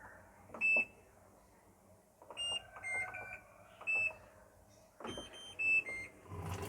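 Washing machine control panel beeping as its buttons are pressed to switch it on and start a cycle: a series of short electronic beeps, some single and some in little two- or three-note tunes.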